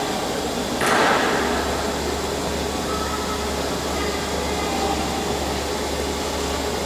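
Steady whirring machine noise in a workshop. A short loud hiss comes about a second in, and a deeper low hum sets in after it and runs on.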